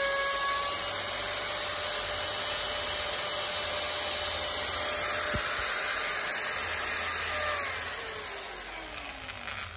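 Bosch electric angle grinder running free with no load, a steady whirr. About seven and a half seconds in it is switched off and the motor's pitch falls as it spins down.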